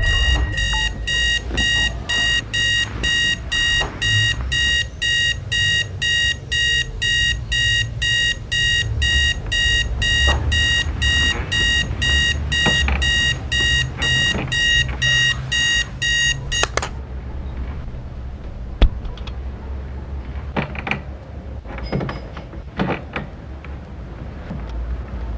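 Electronic alarm clock beeping in a fast, even pulse, about two and a half beeps a second, which cuts off abruptly about two-thirds of the way through. Afterwards there are only soft scattered knocks and rustles over a low hum.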